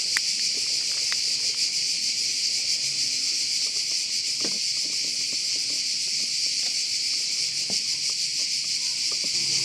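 Steady chorus of insects, such as crickets or cicadas, making a shrill, fast-pulsing high buzz. A few faint knocks come through underneath, about half a second in, about four and a half seconds in and near eight seconds.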